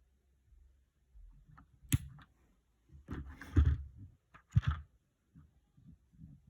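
Small 3D-printed plastic model parts being handled: a sharp click about two seconds in, a stretch of rustling and scraping, then another sharp click a little later.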